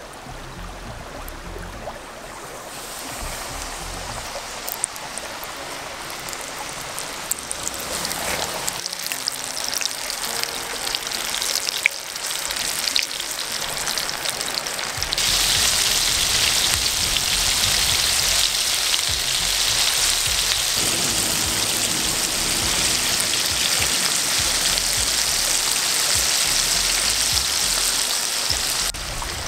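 Hot oil in a cast-iron skillet sizzling as breaded chicken strips deep-fry in it. The sizzle builds gradually, then jumps much louder about halfway through and stays steady.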